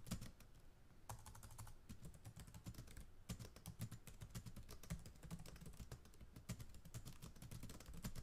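Faint, rapid computer keyboard typing clicks, going on with a couple of short pauses.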